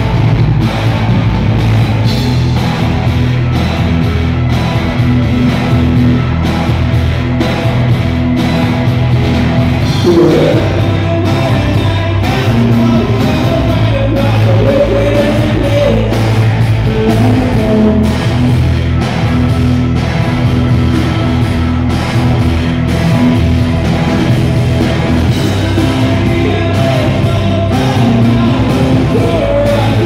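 Live rock band playing loud, with drums, bass guitar, electric guitar and keyboards. A male voice sings into the microphone from about ten seconds in.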